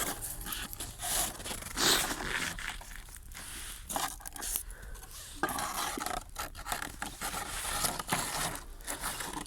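Irregular scraping, rubbing and knocking, as of objects being handled and dragged about.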